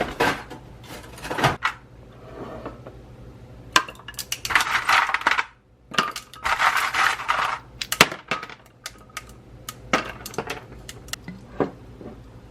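Small hard objects being handled: sharp clinks and taps, with two stretches of rattling clatter in the middle.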